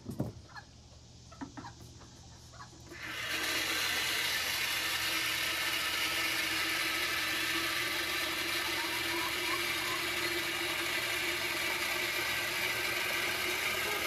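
Water spraying from a garden hose watering wand, switched on about three seconds in and then running as a steady hiss.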